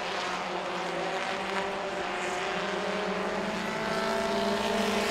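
Several Super Truck race engines running at speed in a close pack, a steady drone that grows a little louder near the end.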